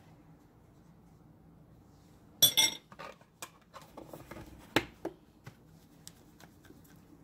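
Metal cutlery clinking against a ceramic bowl: one loud clatter with a short ring about two and a half seconds in, then scattered lighter clicks and taps.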